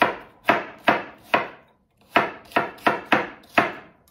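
Kitchen knife chopping an onion on a wooden cutting board: about nine sharp strokes, roughly two a second, in two runs with a short pause in the middle.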